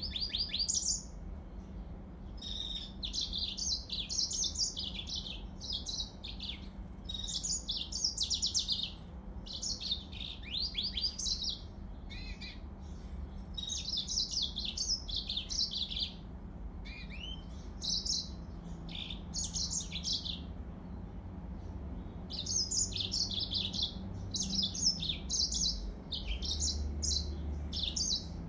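Yellow-fronted canary (Mozambique canary) singing: phrases of rapid, high twittering notes, each a second or a few long, broken by short pauses, with a longer unbroken stretch near the end.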